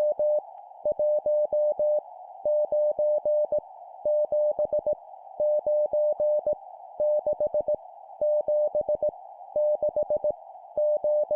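Morse code (CW) at 17 words per minute: a single steady beep of about 600 Hz keyed on and off in dots and dashes, sending groups of random digits with short pauses between groups. Under it runs a soft, narrow hiss like a receiver's filtered band noise.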